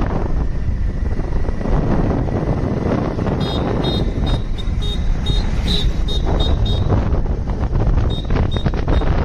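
Motorcycle riding along a road, its engine running steadily under wind buffeting the microphone. A short high chirp or beep repeats two to three times a second from a few seconds in, with a brief pause near the end.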